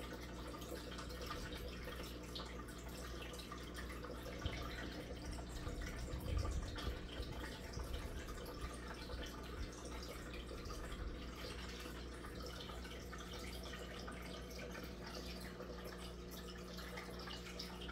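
Aquarium water bubbling and trickling: air bubbles rising and breaking at the surface of a community fish tank, a steady fine crackle over a constant low hum.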